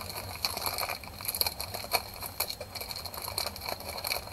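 Plastic poly mailer bag crinkling and rustling as hands work at opening it: an irregular run of sharp crackles.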